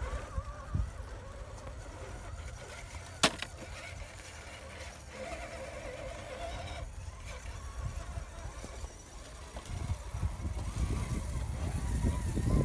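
Electric motors of radio-controlled scale crawler trucks whining, rising and falling in pitch as they crawl over rocks. Low wind rumble on the microphone grows stronger near the end, and there is a single sharp click a little over three seconds in.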